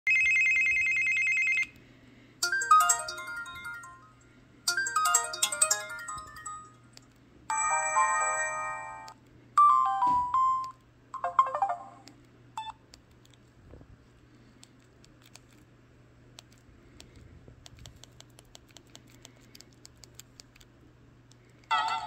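Samsung R451c cell phone playing a run of short preloaded ringtones from its speaker, each lasting only a second or two. The first is a steady electronic beep, followed by a short melody played twice and several brief tunes. After about 13 seconds only faint clicks are heard, and then a busier ringtone starts just before the end.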